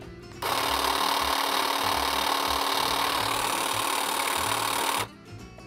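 Cordless battery hedge trimmer running unloaded in the air, its blades moving back and forth. A steady whir with a constant hum starts suddenly about half a second in and cuts off suddenly about five seconds in, when the two-handed switch is released.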